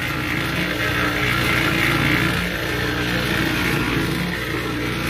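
Small portable electric cement mixer running, its drum turning and churning wet concrete mix with a steady motor-and-gear hum and the grinding slosh of the mix.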